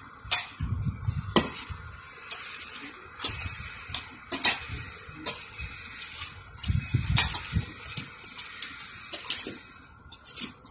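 Metal hand trowels and a small garden shovel digging into planter soil: irregular scrapes and sharp clinks as the blades strike soil and grit, with low thuds about a second in and around seven seconds.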